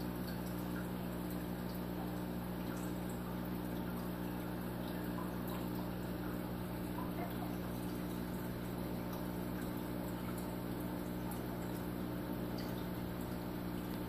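Steady low mechanical hum with an even hiss over it and a few faint ticks: indoor room noise.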